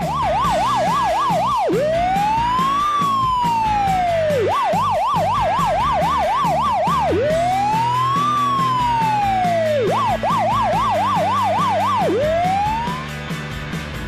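Emergency-vehicle siren alternating between a fast yelp, about four sweeps a second, and a slow rising-and-falling wail, three times over. It cuts off about a second before the end, with music underneath.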